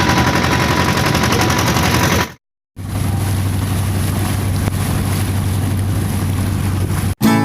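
A motorboat's engine running at a steady hum amid rushing water and wind noise. It is broken about two seconds in by a brief cut to silence, which changes the mix.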